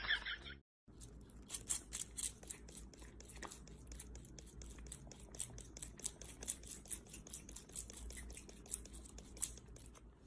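A grooming brush stroking a cat's cheek and fur: quick, repeated scratchy brushing strokes, several a second, fairly quiet.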